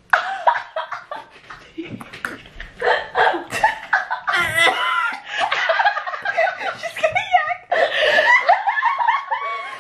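Young women laughing hard together, with bursts of loud, high laughter and a few words in between.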